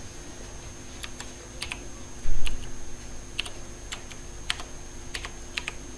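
Computer keyboard keys clicking irregularly as a password is typed, with one louder dull thump a little over two seconds in. A faint steady high-pitched whine runs underneath.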